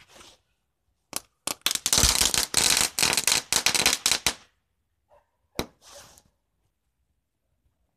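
Small firecrackers going off in a string of sharp cracks. A few single bangs come about a second in, then a dense rapid rattle of cracks for about two and a half seconds, and one last crack with a short rattle a second or so later.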